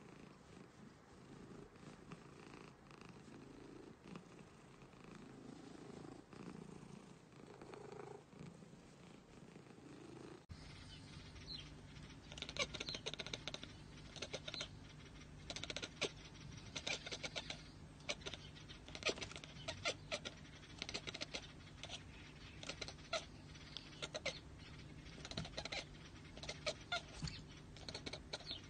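A domestic cat purring while it is scratched under the chin. After an abrupt change about ten seconds in, quick irregular clicks run over a steady low hum.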